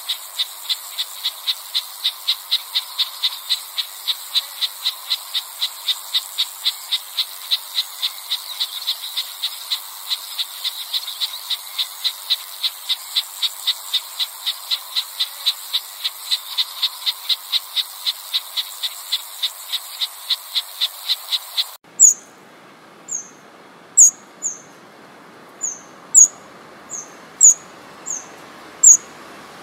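A steady run of short, evenly repeated call notes, about three a second, with a faint hiss behind them. Near the end the sound cuts to loud, sharp, very high-pitched ticking calls of a Eurasian wren, about one a second.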